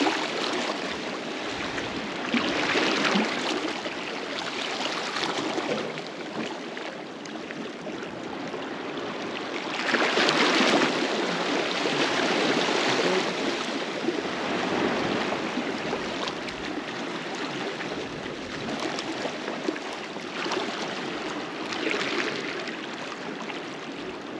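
Sea water lapping and sloshing against shoreline rocks, with three louder washes as small waves come in, the biggest near the middle.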